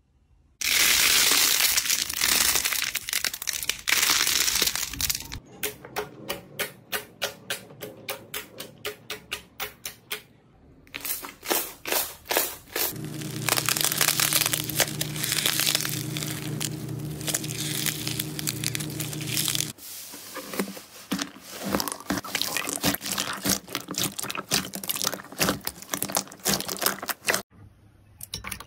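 Hands squeezing, stretching and poking slime and a squishy bead ball: a dense crackle for the first few seconds, then runs of sharp pops and clicks at about two or three a second. A steady low tone runs underneath for several seconds in the middle.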